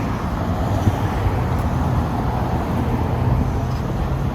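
Steady traffic noise from cars passing on a busy street, with a heavy low rumble.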